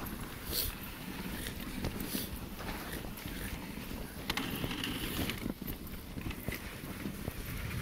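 Dogsled running over a snow trail behind a dog team: a steady rumble and hiss from the runners on the snow, with scattered short clicks and knocks.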